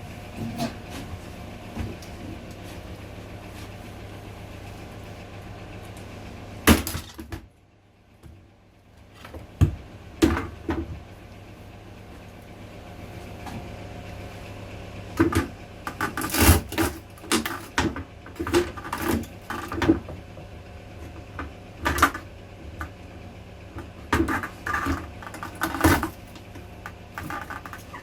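Bolt cutters working on a fan heater: a steady hum, then one loud sharp snap about seven seconds in, after which the hum drops away for a second or two. From about fifteen seconds on comes a run of irregular sharp clicks, cracks and knocks as the heater's parts are broken and handled.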